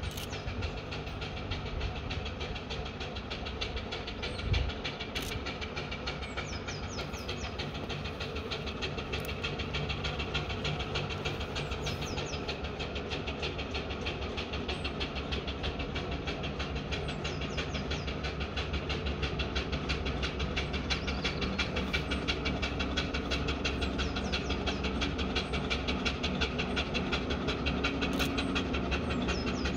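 Steam road engine working, its quick, even exhaust beats slowly growing louder as it approaches.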